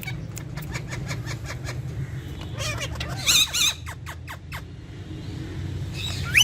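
Pet parrots calling: a warbling squawk about halfway through and a short, sharp rising squawk at the end, with scattered small ticks. A steady low hum runs underneath.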